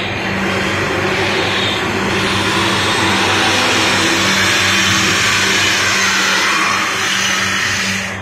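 High-pressure spray nozzle hissing steadily over a constant low motor hum, the hiss shifting slowly in pitch as the nozzle is moved.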